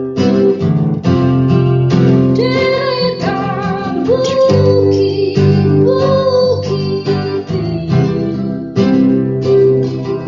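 Music: an acoustic guitar strummed in a steady rhythm, with a woman's voice holding three long notes with vibrato over it between about two and seven seconds in.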